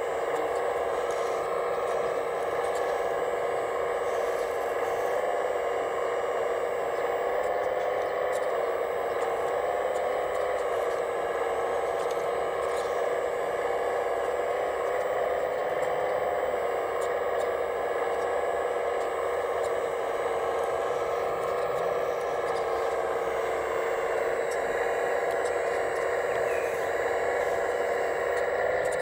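Hydraulic pump of an RC model Case CX85 rail excavator whining steadily, its pitch wavering slightly as the boom and grapple are worked.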